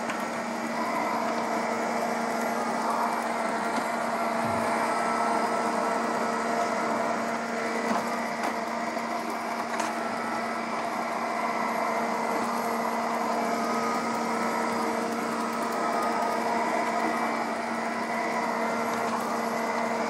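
ILIFE V3s Pro robot vacuum running on carpet: a steady motor and suction-fan hum with a few steady tones in it, about 65 dB up close.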